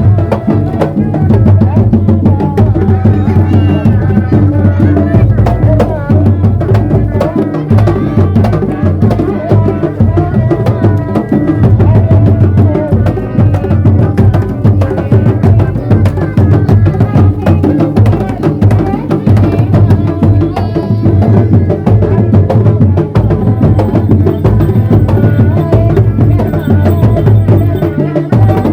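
Kuda lumping ensemble music playing loudly and without a break: busy drumming with a melody line wavering over it.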